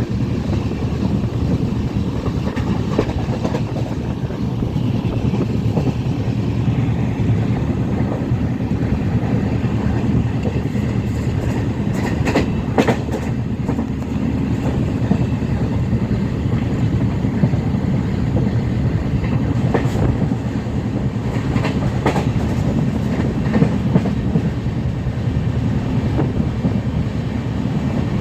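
Passenger train running on the rails, heard from on board: a steady low rumble with wheels clicking over rail joints, the sharpest clicks coming in a cluster about twelve seconds in and a few more later.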